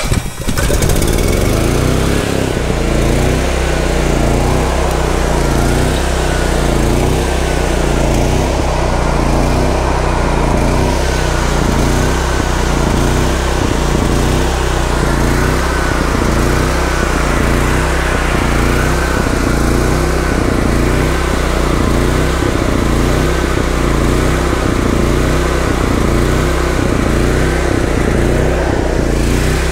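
Honda-powered Black Max 7000-watt portable generator's engine catching just after electric-start cranking, then running steadily with a slight regular waver about once a second. This is its first start after sitting about four months.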